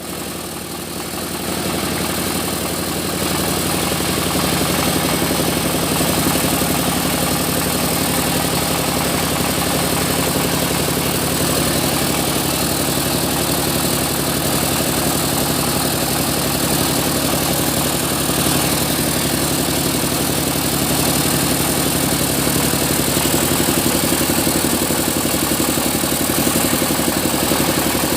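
Sawmill machinery running steadily with an even engine-like drone, growing louder over the first few seconds and then holding level.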